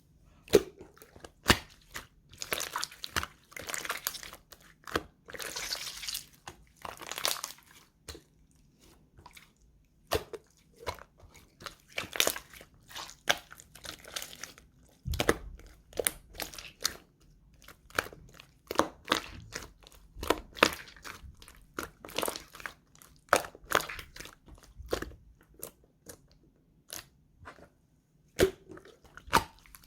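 Clear slime being pressed and stretched by hand, giving an irregular run of sharp pops and clicks with a few longer crackly stretches.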